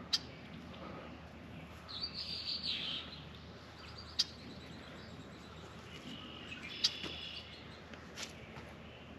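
Small birds chirping and singing, in two spells, about two seconds in and again around seven seconds. Four short sharp clicks, the loudest sounds, fall at intervals through it.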